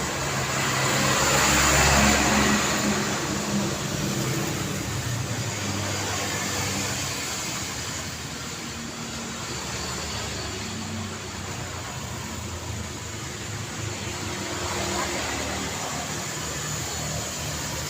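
City street traffic: a steady hum of passing cars with engine tones underneath, one vehicle passing close and loudest about two seconds in before the noise eases back.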